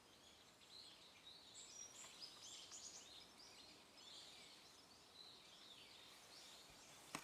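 Small songbirds chirping and twittering faintly, many short high calls overlapping one another. A single sharp click sounds near the end.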